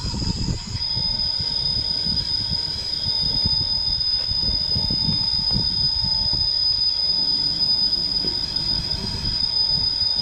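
RC rock crawler's electric motor and speed controller giving a steady high-pitched whine as the truck creeps slowly up a rock face at low throttle, over a louder uneven low rumble.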